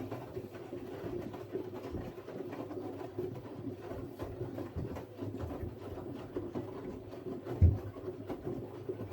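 Siemens Siwamat IQ 716 front-loading washing machine running, its drum turning with a steady hum and soft irregular knocks. A single low thump about three-quarters of the way through is the loudest sound.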